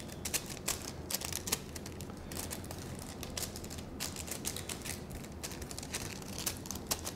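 Gloved fingers rubbing and pressing copper transfer leaf on its protective backing paper onto a gourd's skin: a faint, irregular crackle and rustle of paper.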